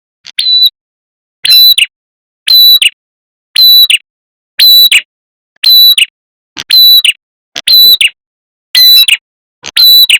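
Lure recording of a prenjak kepala merah (red-headed prenjak) calling: a short, loud, shrill call repeated steadily about once a second, ten times.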